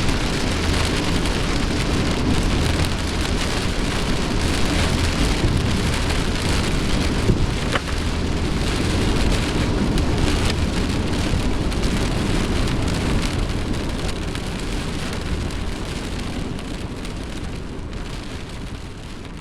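Heavy storm rain driven by strong wind, beating on a semi-truck, with a steady low rumble beneath. It fades away over the last few seconds.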